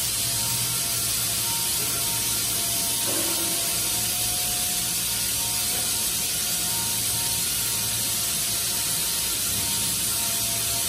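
Welding arc on a steel pipe: a steady, even hiss with no breaks.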